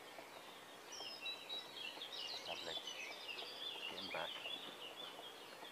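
A songbird singing a fast, twittering run of high chirps and warbles, with a couple of soft rustles as a carp is laid down on an unhooking mat.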